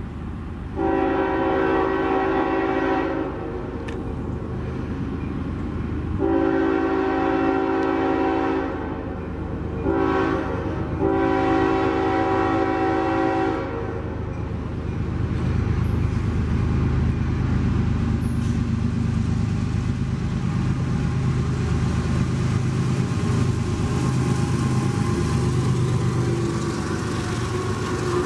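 Diesel locomotive's multi-tone air horn sounding the grade-crossing signal: two long blasts, a short one and a long one. The locomotive's engine and the train's rumble then grow louder as it draws near.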